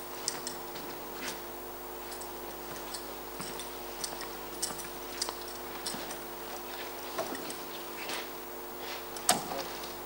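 Scattered faint footsteps and light knocks of actors moving across a stage, with one louder knock near the end as a chair is taken at a table, over a steady low electrical hum.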